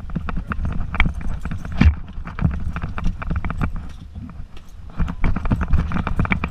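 A dog's paws and claws clattering on wooden deck boards and steps in a quick, irregular patter of knocks. The sound comes through a camera harnessed to the dog's back, which bumps and rubs with each stride. The patter is busiest at the start and again from about five seconds in.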